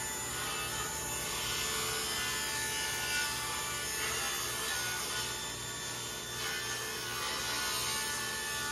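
Table saw running with a steady whine as it rips a cedar plank lengthwise, the blade cutting through the wood.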